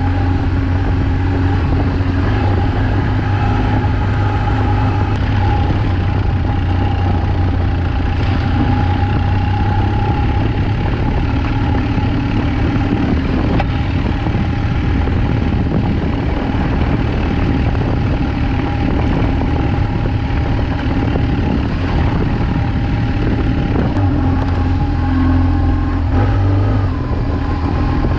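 BMW R1200GS flat-twin (boxer) engine running at low, steady revs while riding, heard from on the bike together with road and wind noise.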